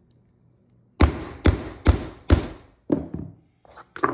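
Hammer striking a plastic tapping block set against a laminate plank, seating the click joint. Four sharp knocks about half a second apart, then a few lighter ones near the end.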